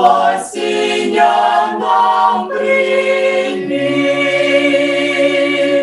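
Small mixed choir of men and women singing a cappella in Ukrainian, the closing phrase of a Christmas carol ending on a long held final chord. About halfway through the bass drops to a lower note under the held chord, and the chord cuts off just before the end.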